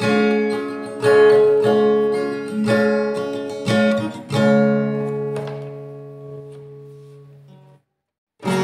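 Acoustic guitar strumming chords in a slow ballad. The last chord is left to ring and fade away, there is a brief silent break near the end, and then the guitar comes back in.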